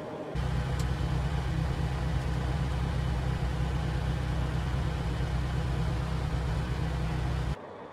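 Heavy truck's diesel engine running steadily at cruising speed, a deep even drone that cuts in suddenly just after the start and cuts off suddenly near the end.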